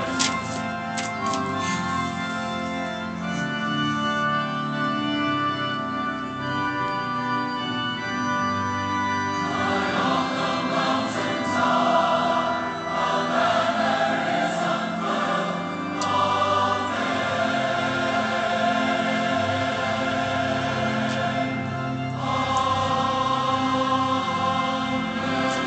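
Several voices singing a hymn together with instrumental accompaniment, in long held phrases.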